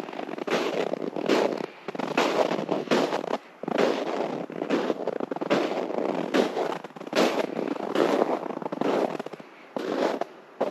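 Footsteps crunching through crusty, frozen snow at a steady walking pace, each step a crackly crunch.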